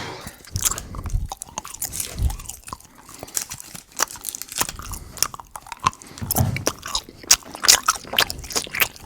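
Close-miked chewing and crunching of food, with many irregular sharp mouth clicks and smacks.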